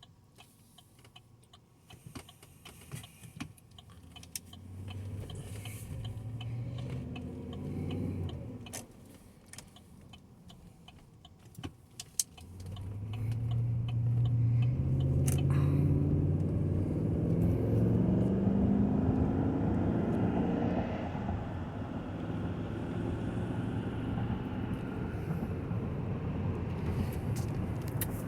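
2019 Chevy Tahoe's 5.3-litre V8 heard from inside the cab as the truck pulls away. The engine note rises briefly and eases off, then near the middle a longer acceleration climbs in pitch and drops back at each upshift before settling into a steady cruise. Light clicks in the quiet opening seconds.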